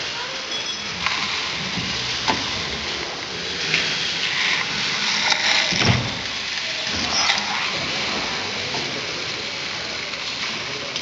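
1894 Hathorn Davey steam pumping engine running: a steady noisy hiss and clatter of its moving parts, with a few sharp knocks and the loudest thud about six seconds in.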